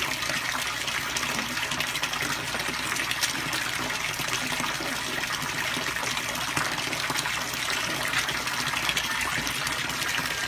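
Steady splashing and churning of water as a dense crowd of koi thrash at the surface of a concrete pond, competing for hand-fed food.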